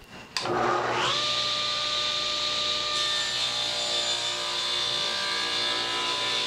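A Ridgid table saw switched on about half a second in: its motor and blade rise to full speed within a second, then run steadily while a 1x board is fed through the blade for a rip cut.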